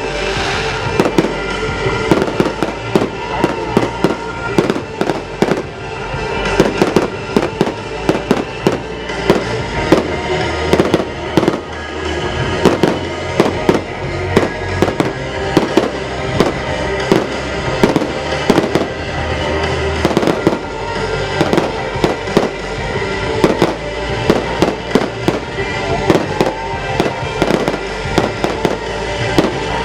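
Fireworks bursting in quick, irregular succession, bang after bang, over loud music playing.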